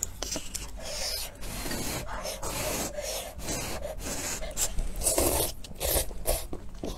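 Slurping rice noodles and chicken broth from a cup, a series of hissy slurps, the longest about two and a half seconds in.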